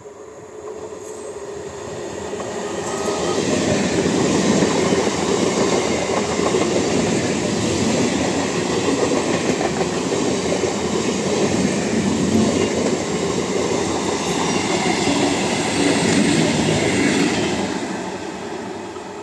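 An electric multiple-unit (EMU) local train passes close by on the adjacent track. The wheel and rail noise builds over the first few seconds, stays loud for about fourteen seconds as the coaches go by, then fades near the end as the train moves away.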